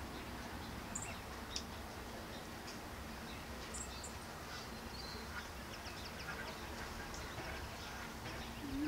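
Quiet outdoor background with a steady low rumble and scattered faint, short, high bird chirps.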